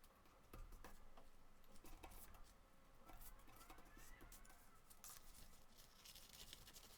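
Faint paper handling in a quiet room: soft rustles of paper with scattered light clicks and taps, and a short rising scrape about three seconds in.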